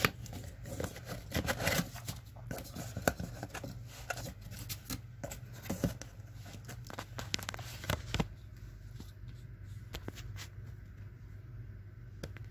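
Cardboard boxes being handled by hand: irregular taps, scrapes and rustles of cardboard, over a steady low hum.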